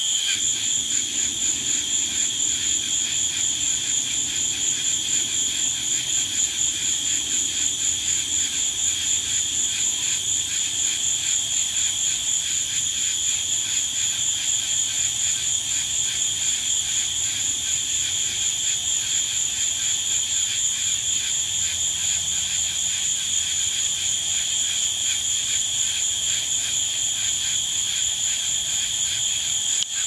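Nighttime chorus of calling animals: a high-pitched trill that pulses evenly and keeps going without a break.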